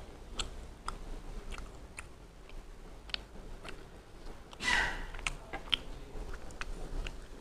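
A person chewing food with small scattered clicks, and a sneeze from someone else about four and a half seconds in, the loudest sound.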